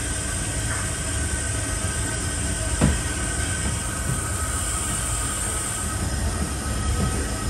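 Steady mechanical rumble and hiss of commercial kitchen background noise, with a faint high whine and one short knock about three seconds in.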